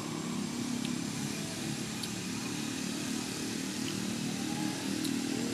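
An engine running steadily off camera, a continuous low pitched drone, with a thin steady high whine and a few faint ticks over it.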